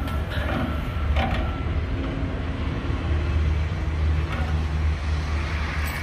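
A walk-in freezer's rooftop condensing unit running steadily: the hermetic compressor's low hum and the condenser fan's rush, with a few light clicks of hand work on the refrigerant fittings.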